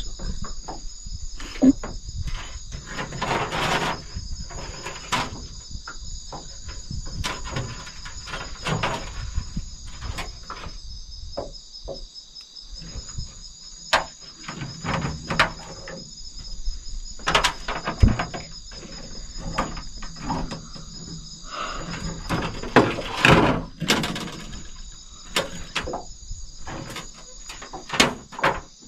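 Steady, high insect chorus trilling without a break. Over it come irregular knocks, clatters and rustling, loudest twice in the second half.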